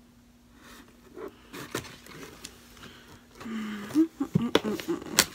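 Cardboard shipping box being handled and opened: scattered scrapes, taps and rustling that grow busier and louder from about three seconds in.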